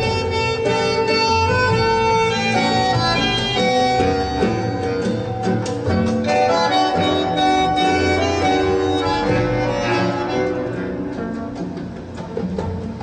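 Acoustic instrumental music, a 45 RPM vinyl LP playing through a hi-fi system. Several sustained melodic lines sound together, and it gets a little quieter near the end.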